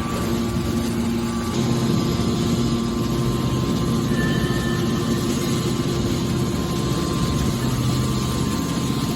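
Hydraulic scrap metal baler running, its motor and pump giving a steady, even hum.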